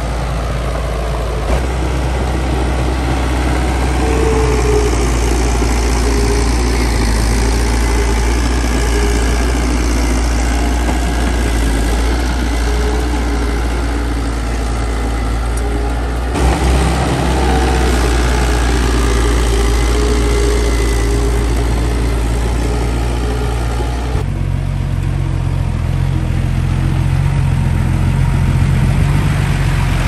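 D20P bulldozer's diesel engine running steadily under work, a deep engine drone with a steady low hum. The sound changes abruptly twice, about halfway through and again near the end.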